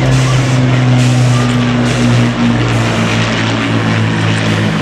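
Piston aero engines of an Avro Lancaster bomber flying past in formation with a Hurricane and a Spitfire: a loud, steady multi-engine propeller drone. The Lancaster's engines are four Rolls-Royce Merlin V12s.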